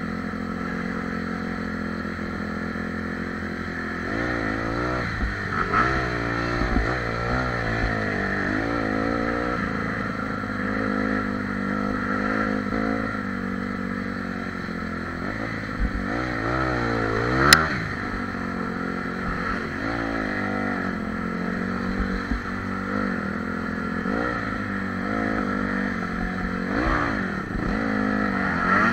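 Honda CRF four-stroke dirt bike engine running under the rider, its pitch rising and falling repeatedly as the throttle is worked over rough, muddy ground. A single sharp knock a little past halfway is the loudest moment.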